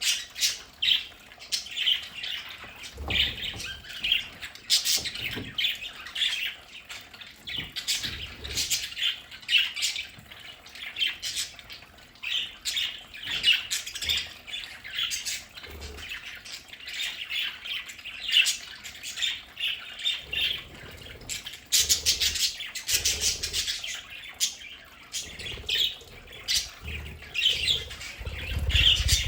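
A flock of budgerigars chattering, with many quick overlapping chirps and warbles, and now and then a low thump.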